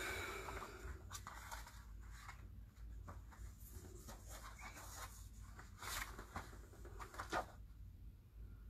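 Faint rustling and light clicks of paper being handled close to a phone's microphone, with a sharper rustle about seven seconds in.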